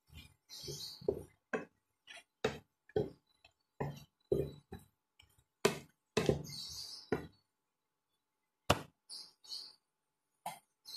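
Spatula knocking and scraping against a pan while stir-frying vegetables, with sharp clinks about twice a second. About six seconds in, chopped carrots are tipped into the pan from a plastic tub.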